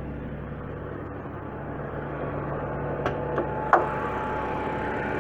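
BMW N52 straight-six idling steadily, sounding normal with no lifter tick at this moment, growing louder partway through. A few sharp clicks and knocks come about three to four seconds in.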